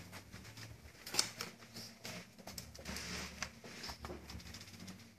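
Steady low electrical hum from a powered-on conveyor metal detector's control unit, with scattered light clicks and knocks.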